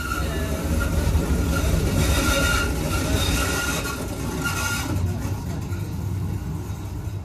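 Stadtbahnwagen B light-rail cars rumbling along the track, heard from aboard. Their wheels squeal in high, wavering tones on a tight curve, and the squeal stops about five seconds in. The running sound then quietens as the train slows into a stop.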